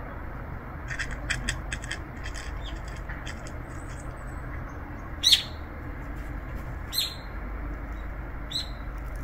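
Several sharp, high bird chirps, one every second or two, the loudest about five seconds in, over a steady low rumble. A quick run of light clicks comes early on.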